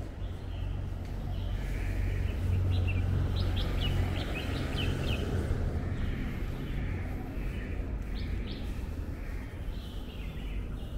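Birds chirping: a run of short, high chirps a few seconds in and a couple more later, over a steady low rumble of city background noise.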